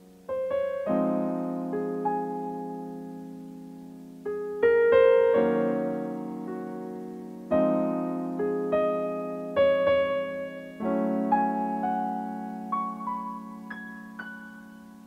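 Gentle background piano music: chords struck every few seconds and left to ring and fade, with a few higher single notes near the end as it dies away.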